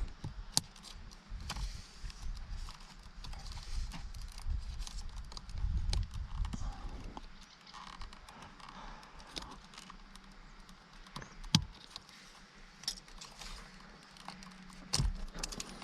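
Irregular clicks, taps and light rattles of a screwdriver prying out the airbag's wiring connectors, with a few dull knocks and one sharp click in between.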